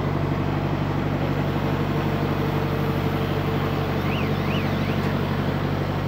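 An engine idling steadily at an even pitch, with a few faint high chirps about four seconds in.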